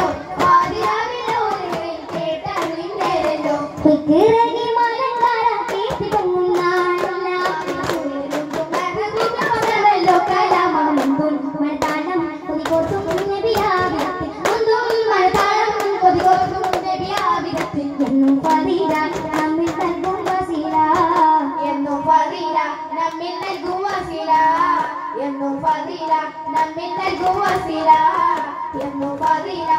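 Group of boys singing together while beating hand-held frame drums (daf) in rhythm, a duff muttu performance: sharp drum strokes over the chanted song throughout.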